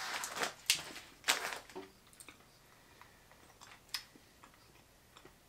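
Faint crinkling and clicking of a plastic candy bag being handled, with quiet chewing, during the first two seconds, then a few single soft ticks, one about four seconds in.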